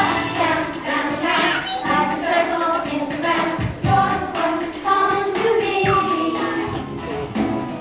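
A children's choir singing a praise song together with musical accompaniment.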